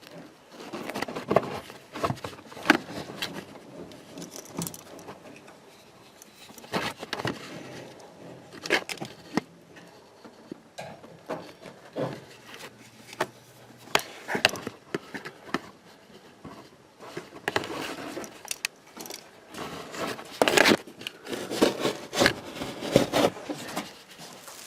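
Irregular clicks, knocks and scrapes of hand tools and metal parts being handled at an engine, with the engine not running.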